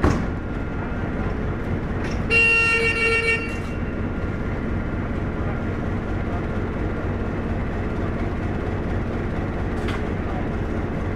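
A diesel locomotive horn sounds one short toot about two seconds in, over a steady low engine rumble. A short knock comes at the very start.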